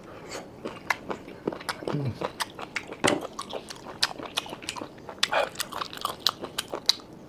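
Close-miked eating of steamed snails: chewing with many quick, irregular wet clicks and mouth smacks.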